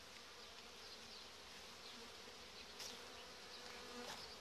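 Faint buzzing of honeybees flying around the hive.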